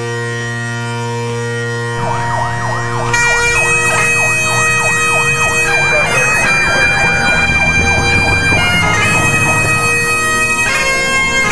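Bagpipes playing over their steady drones. About two seconds in, a fire engine siren joins, sweeping rapidly up and down in a yelp, and it fades out after about nine seconds.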